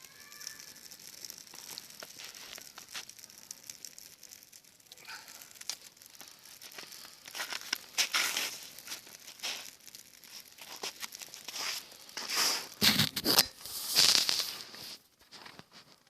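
Dry birch bark and brushwood crackling and rustling in a small, newly lit campfire, in irregular bursts that grow louder near the end.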